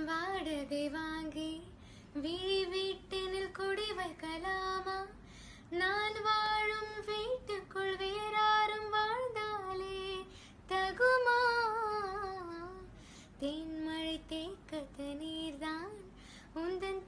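A high voice, a woman's or a child's, singing a slow song melody in phrases of a second or two with short breaths between them, with no clear instrumental backing.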